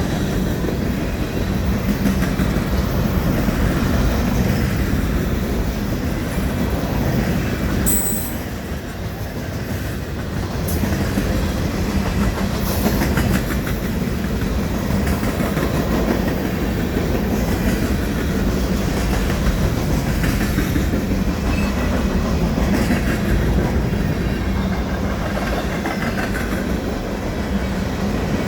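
Freight cars of a long manifest train rolling past at close range: a steady rumble of steel wheels on rail with the clickety-clack of wheels crossing rail joints.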